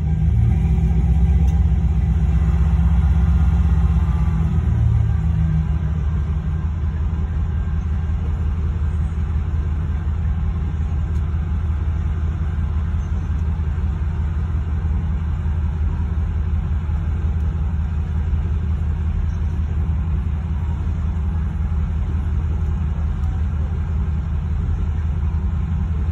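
Loaded coal train's hopper cars rolling past at a crossing, a steady low rumble heard from inside a waiting car's cabin. It is a little louder for the first few seconds.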